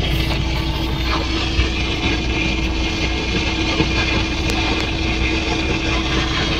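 Semi truck's diesel engine idling, a steady low rumble with a constant hum, heard from inside the cab.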